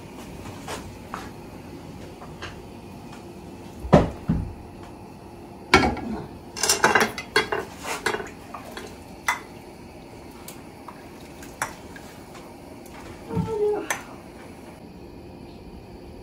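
Cooking utensils knocking and scraping against pots on the stove while food is stirred, with a couple of knocks about four seconds in, a busy run of clinks and clatter a few seconds later, and a few single knocks after that.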